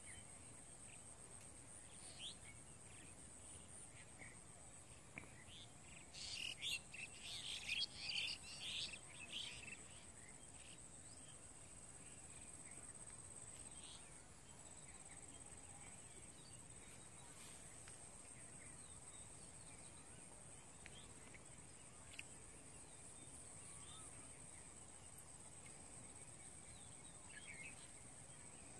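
Faint rural ambience: a steady high-pitched insect trill throughout, with a spell of bird chirping from about six to ten seconds in and a few isolated chirps elsewhere.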